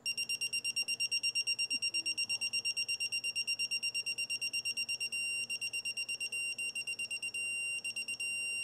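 Yellow Jacket 60648 digital torque wrench's buzzer beeping rapidly, about seven or eight high beeps a second, breaking off briefly several times in the second half. The warning means the wrench has passed 80% of its 9.0 ft-lb target torque while tightening a flare nut.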